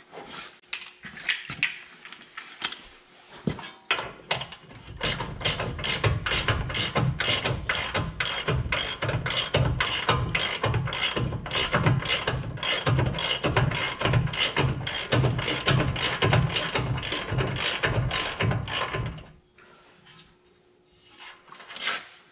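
Hand ratchet wrench clicking in steady strokes, about three clicks a second, as the nut on the lower ball joint stud is backed off. There are a few scattered clicks first, and the ratcheting stops near the end.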